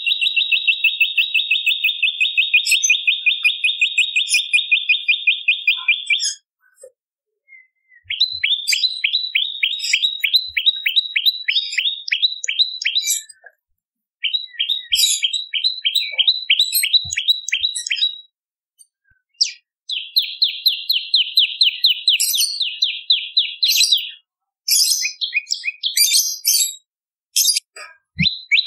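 Prenjak lumut singing: fast trills of short, sharp repeated notes, in four bouts of about four to six seconds each with brief pauses between, then a few shorter, higher separate calls near the end.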